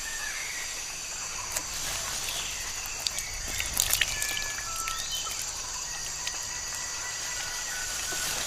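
Tropical forest ambience: a steady, high-pitched insect chorus with short whistled bird calls, and a few clicks and rustles about two to four seconds in.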